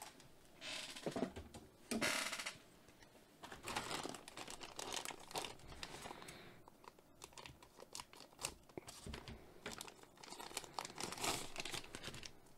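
A clear plastic bag crinkling in irregular bursts as multimeter test leads are handled inside it and drawn out.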